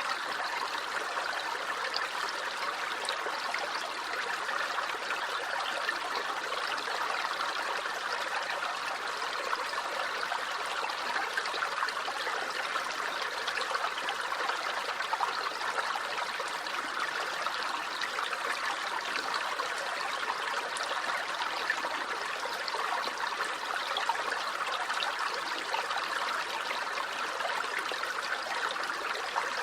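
A small stream running over rocks: steady babbling and trickling water with no change in flow.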